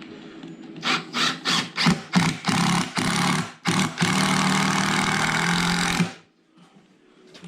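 Electric power drill motor running in a series of short trigger bursts, then one steady run of about two seconds that stops abruptly, as it drives into the camper's timber.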